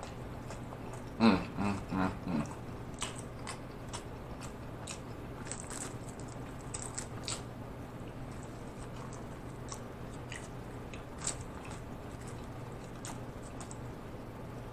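Close-miked chewing of a soft, juicy Italian beef sandwich: a run of small wet mouth clicks and smacks. About a second in come a few short hummed sounds, the loudest part.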